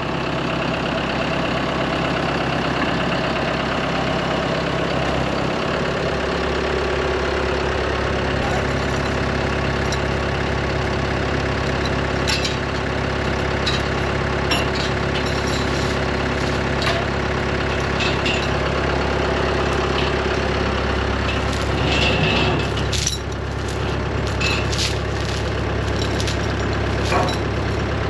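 Large farm tractor's engine running steadily at idle, with scattered sharp metallic clanks and knocks over it.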